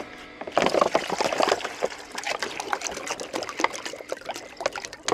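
Water poured from a large plastic bottle into a metal pot, splashing and glugging unevenly. It starts about half a second in and is loudest in the first second.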